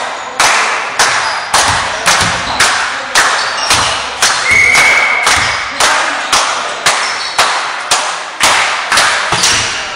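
Steady, regular thuds, about two a second, each ringing in a large echoing hall. A brief high whistle note sounds about halfway through.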